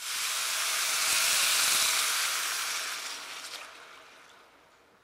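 Chicken broth poured into a hot pan of rice sautéed in oil, hissing and sizzling as it hits the hot surface. The sizzle starts at once, is loudest for the first two seconds, then fades away over the next two as the pan cools.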